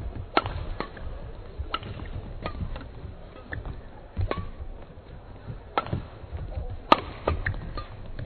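Badminton rackets striking a shuttlecock back and forth in a fast doubles rally: sharp hits at irregular intervals, the loudest about seven seconds in, over a low arena murmur.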